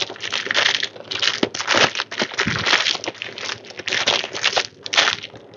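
Clear plastic wrapping crinkling and rustling in irregular bursts as it is pulled off a small wooden stand by hand.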